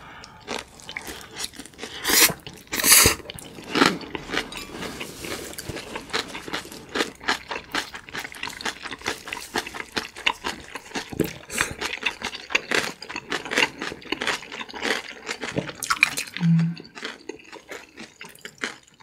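Close-miked eating: a loud slurp of noodles about two to three seconds in, then steady wet chewing and crunching of napa-cabbage kimchi wrapped around instant noodles.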